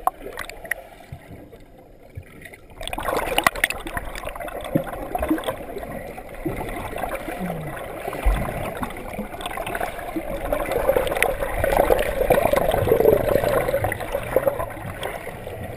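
Muffled underwater sound of a freestyle swimmer's arm strokes and kicks churning the water, picked up by a submerged camera. It is quieter for the first few seconds, then becomes a steady gurgling rush that grows louder past the middle as the swimmer comes close.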